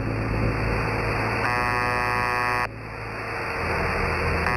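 The Russian shortwave numbers station MDZhB, 'the buzzer', sending its buzzing tone: a buzz of about a second, heard once about a second and a half in and again starting near the end, with radio static hissing in the pause between.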